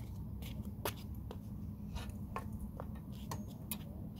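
Fishing rod being handled: a string of sharp clicks and taps, about eight over four seconds, over a steady low rumble.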